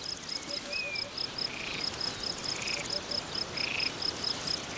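Evening insect and frog chorus: a cricket chirps steadily at about five chirps a second while frogs call roughly once a second, with a brief bird whistle about a second in.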